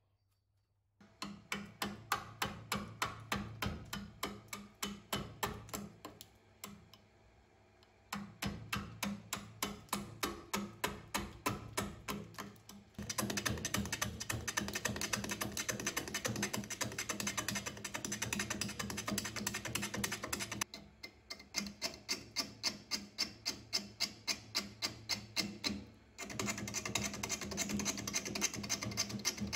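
Gouge roughing an out-of-round willow blank on an Omega Stubby wood lathe: the tool strikes the uneven surface once per turn, a fast even knocking of about five a second, with a steady motor hum underneath. In the middle stretch the cut becomes a denser, steadier cutting noise, and the cutting stops and restarts a few times.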